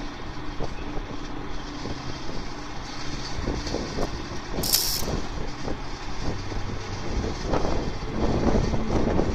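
Heavy carrier truck running at idle, a steady low rumble, with a short burst of hissing air about halfway through.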